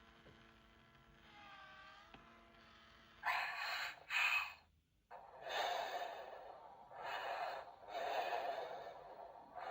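A Baby Born Annabell interactive doll playing its recorded baby sounds. A faint sung tune fades out. Then come two quick breaths and a run of slow, noisy baby breaths or sighs, about one every second and a half.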